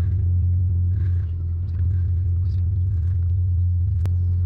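Steady low mechanical hum of a running motor, with one sharp click near the end.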